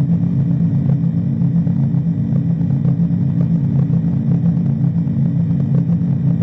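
A loud, steady low drone with a slight fluttering pulse, holding level throughout.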